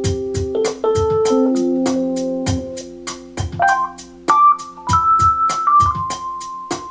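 Keyboard music: organ-like held notes under a moving melody line, over a steady beat of ticks about four a second with low thumps.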